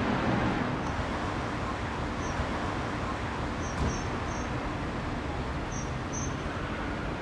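City street ambience: a steady rumble of traffic, with a few short high bird chirps about two, four and six seconds in.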